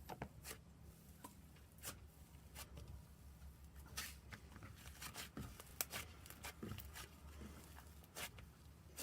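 Slime being poked and squeezed by hand: faint, irregular small pops and crackles.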